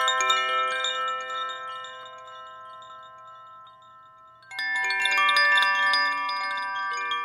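Koshi bamboo chimes, their tuned metal rods struck by a hand-swung clapper, ringing as a cluster of overlapping clear tones. The Terra chime's notes fade away over about four seconds. Then, about four and a half seconds in, the Ignis chime sets off a new, brighter ringing that slowly dies down.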